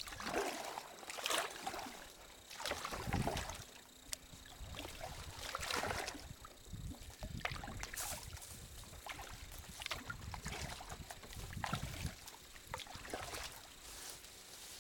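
Kayak paddles dipping into shallow creek water, a splash with each stroke about once a second.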